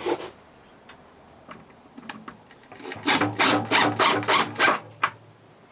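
Wood screw being driven by hand with a screwdriver, a rasping rub with each twist: about eight quick strokes over two seconds, starting near the middle, after a few light clicks.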